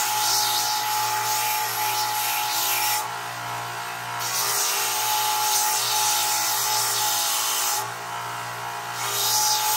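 Bench belt grinder running with a steady motor hum and whine, and loud hissing grinding each time the steel workpiece is pressed to the belt: three passes, broken by short pauses about three and eight seconds in.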